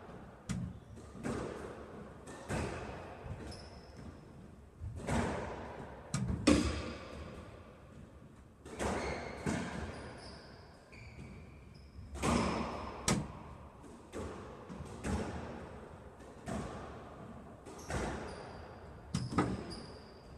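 Squash rally: the ball cracks off racquets and walls about once every one to two seconds, each hit ringing in the enclosed court, with short high squeaks from shoes on the court floor.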